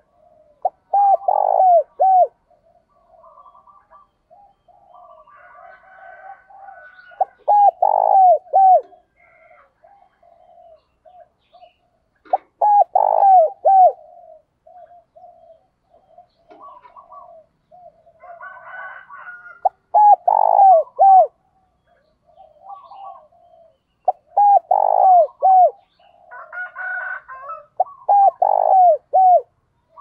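Spotted dove cooing: about six loud phrases of a few low hooting notes each, spaced every few seconds, with fainter cooing and higher chirps from other birds between them.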